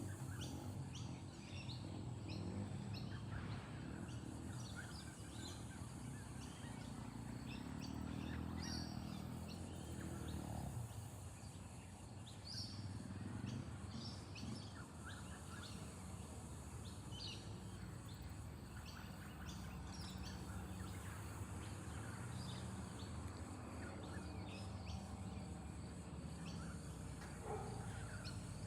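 Outdoor bird chirps coming on and off over a steady low rumble.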